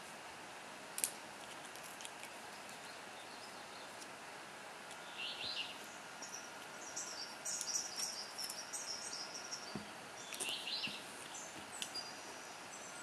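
Steady background hiss with faint bird chirps: short chirps about five and a half and ten and a half seconds in, and a run of high twittering between them. A single sharp click about a second in.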